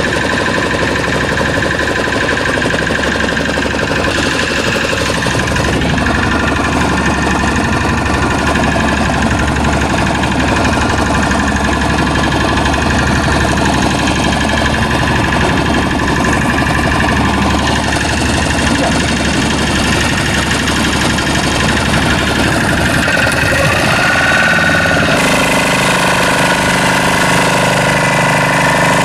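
A fishing boat's engine running steadily, its pitch shifting to a new setting near the end.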